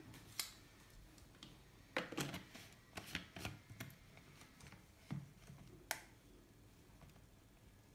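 Scattered light plastic clicks and knocks as the blade lid is fitted and screwed onto a Kenwood personal blender's cup, in a few clusters with quiet between.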